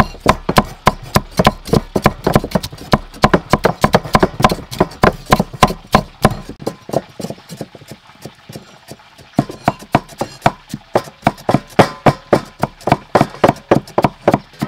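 Cleavers chopping fish paste and vegetables on round wooden chopping blocks, several cooks at once: a rapid, steady run of knocks, several a second. The knocks thin out briefly past the middle, then pick up again.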